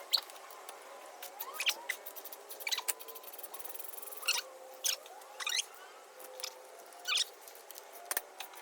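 Hand tool undoing car seat rail bolts: short bursts of squeaking and clicking, repeated every second or so.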